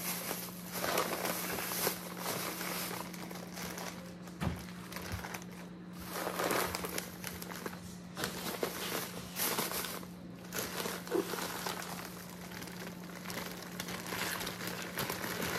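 Thin plastic bags crinkling and rustling in irregular bursts as they are untied, opened and shaken out, over a steady low hum.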